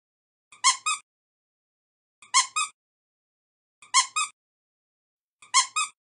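A high two-note chirp, the first note louder and the second a little higher, each set led by a faint tick. It repeats four times about every one and a half seconds with dead silence between.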